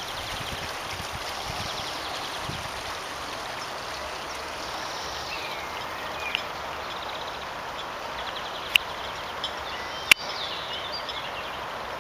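Steady trickle and splash of a small rock-garden stream, with birds singing over it. Two sharp clicks come in the second half.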